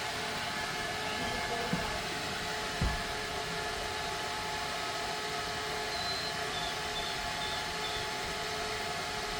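Steady mechanical drone of the motorhome's running machinery, an even hiss with several steady whining tones over it, broken by two short low thumps about two and three seconds in.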